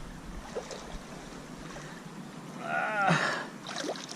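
Creek water running and sloshing, with a brief wavering whine from a dog hesitating at the water's edge just before three seconds in, alongside a short splash.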